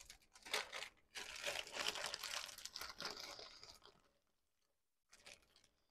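Clear plastic zip bag of small electronic parts crinkling as it is handled, the rustling stopping about four seconds in.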